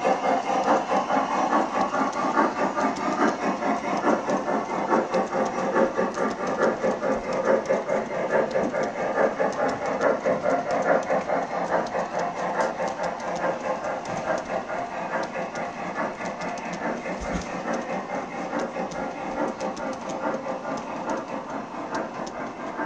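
MTH G scale model passenger cars rolling along the track, a steady rumble full of fast clicking from the wheels over the rails, fading slowly near the end as the last car passes.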